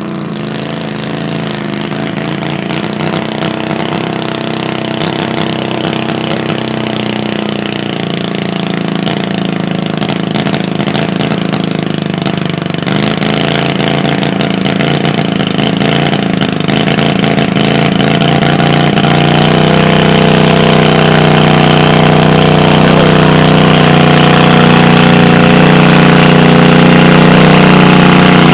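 Pulling garden tractor's engine running at a fairly steady speed, growing steadily louder as the tractor comes up close.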